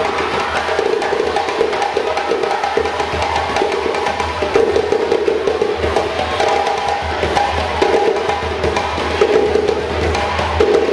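African dance music with fast, driving drumming and sharp, clacking percussion strokes.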